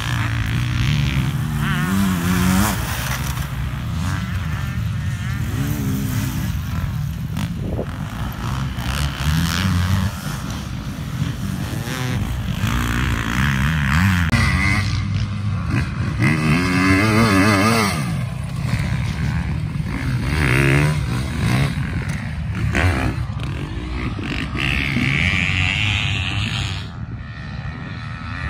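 Enduro motorcycle engines revving as the bikes ride the course, their pitch rising and falling with the throttle, loudest around the middle.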